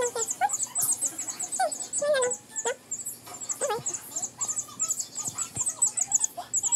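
A young chick peeping in a fast run of short, high chirps, about seven a second, with lower sliding hums or coos from a person breaking in every second or so.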